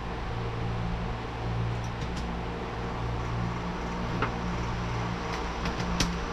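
Steady low motor hum, with a few light clicks and taps as small screws are started loosely by hand into a metal vent-window frame.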